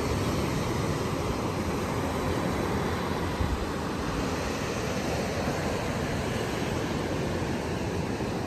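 Steady rushing of ocean surf breaking on a beach, with wind rumbling on the microphone.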